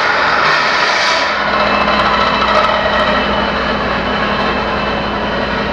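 Skilsaw circular saw running and ripping lengthwise through a wide wooden board: a steady motor whine over the blade's cutting noise. A little over a second in, the higher hiss fades and the lower hum comes forward.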